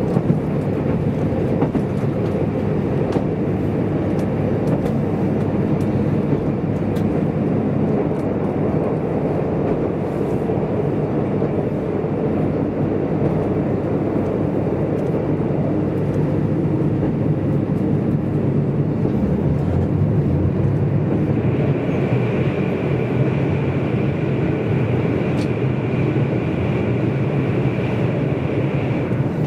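JR Kyushu KiHa 185 series diesel railcar under way, heard inside the passenger cabin: a steady diesel engine drone and wheel-on-rail rumble with a few faint clicks. About two-thirds of the way through, a high steady whine joins in and holds almost to the end.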